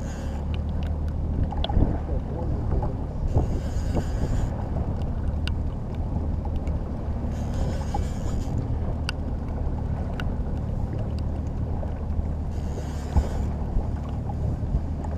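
Small fishing boat under way on open water: a steady low engine hum, with a hiss of water swelling up every four seconds or so and scattered light ticks.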